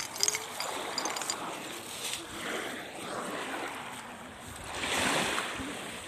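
Surf washing onto a sandy beach, a steady rushing wash that swells about five seconds in. A few light clicks sound in the first second.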